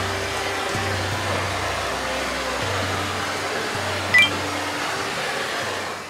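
Steady rushing roar of a waterfall, with soft background music of held low notes underneath. A brief high chirp sounds about four seconds in, and it all fades out at the very end.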